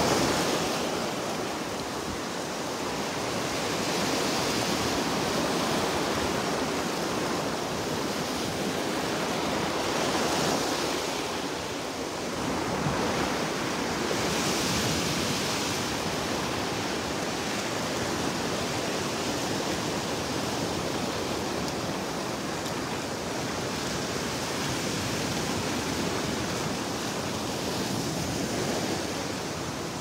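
Small Gulf of Mexico waves breaking and washing up the sand at the water's edge: a steady rushing hiss that swells every few seconds as each wave comes in.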